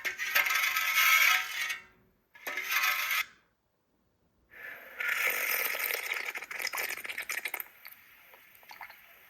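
The home-built alarm clock's alarm audio track playing through its small speaker: harsh, clattering noise in bursts. A burst of about two seconds, a short one, a gap, then a longer stretch that tails off near the end.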